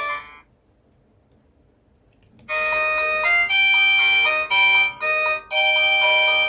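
Cacazi HYA10 wireless doorbell receiver playing its electronic ringtones through its speaker. One chime tune cuts off just after the start, and after about two seconds of silence the next tune begins: a melody of clear electronic notes, each held about half a second with short breaks between them.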